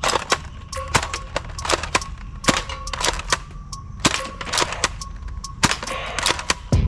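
Toy AK-47 gun firing a long series of sharp shots at uneven spacing, several per second.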